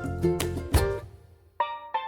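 Background music with plucked-string notes over a beat, dropping out briefly about halfway through before a few notes return.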